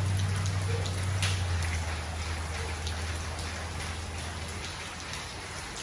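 Rainwater leaking through a tarped, storm-damaged flat roof and dripping inside the building: a steady patter with many scattered sharper drips. A low hum underneath fades away over the first few seconds.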